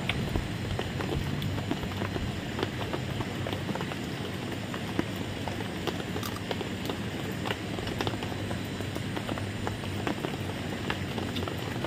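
Rain falling steadily, a constant patter with many scattered drops ticking.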